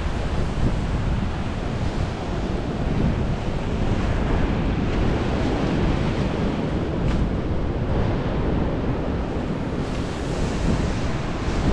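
Strong wind buffeting the microphone in a steady low rumble, with surf breaking on the beach behind it.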